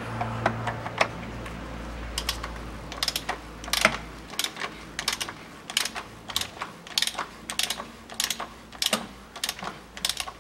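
Socket ratchet clicking in short irregular runs as it screws down the oil filter housing cap.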